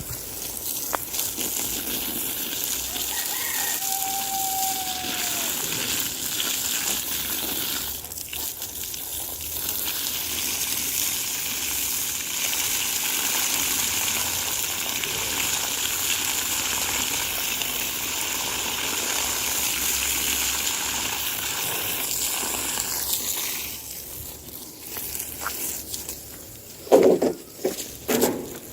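Water gushing steadily from a hose while plants are watered: a continuous hiss that dips briefly about eight seconds in and stops about twenty-three seconds in. A rooster crows once early on, and a few short loud sounds come near the end.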